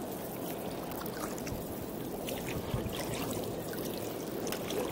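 Water lapping and trickling around a plastic sit-on-top kayak, a steady gurgle with small splashes and drips.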